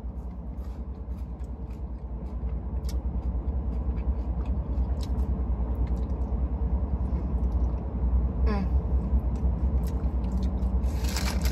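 Chewing and small mouth clicks from someone eating a burrito, over the steady low hum inside a car. A brief rustle comes near the end.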